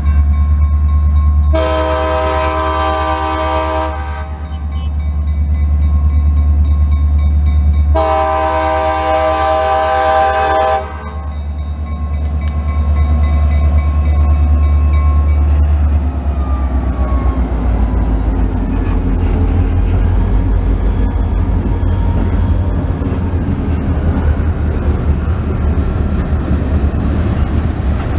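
CSX diesel freight locomotives sounding two long horn blasts at a grade crossing, over a steady low engine rumble and the crossing bells ringing. About halfway through, the locomotives are past and the sound turns to the rhythmic clatter of freight car wheels over the rail joints.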